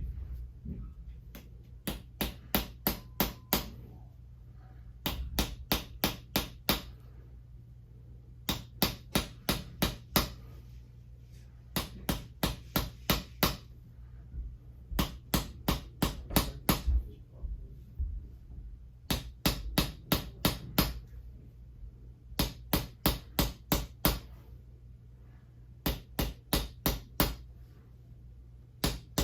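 Chiropractic hammer tapping on the body in rapid bursts of about seven sharp strikes, roughly one burst every three seconds. A low steady hum runs underneath.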